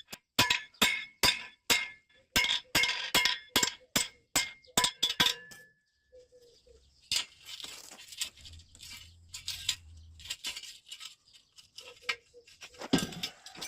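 Hammer blows on steel, about three a second, each with a metallic ring. They stop a little over five seconds in and give way to lighter, irregular clinks and scraping of metal.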